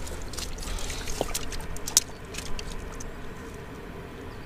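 Footsteps and scuffing on rocks and dry brush as someone climbs down a rocky riverbank: scattered clicks and crackles, with one sharper knock about two seconds in, then quieter.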